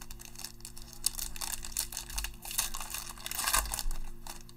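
Foil wrapper of a 2020 Select football card pack being torn open and crinkled by hand, a dense crackling that peaks about three and a half seconds in and stops just before the end.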